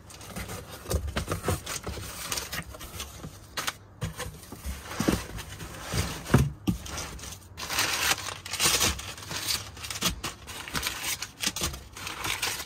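Crinkled kraft packing paper rustling and crumpling as hands push it aside and pull it out of a cardboard box, in irregular bursts with sharp crackles.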